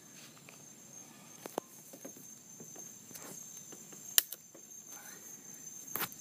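Leaves rustling and a few sharp clicks as a papaya is picked by hand from its tree, the loudest a single snap about four seconds in, over a steady high insect trill.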